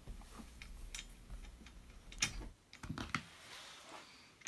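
Faint scattered clicks and taps of small metal fittings being handled at an aluminium frame bar and corner bracket, with a few sharper clicks in the middle.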